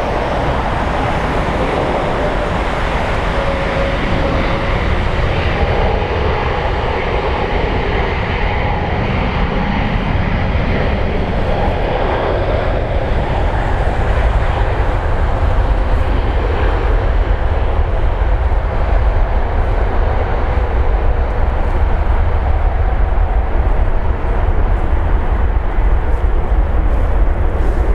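Jet airliner engines running, a loud steady rumble and roar with a faint whine in the first half; the hiss fades while the low rumble grows stronger in the second half.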